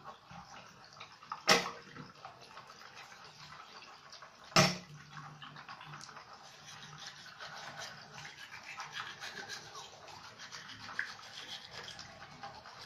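Toothbrush scrubbing teeth, a faint scratchy brushing, with two short loud knocks about a second and a half and four and a half seconds in.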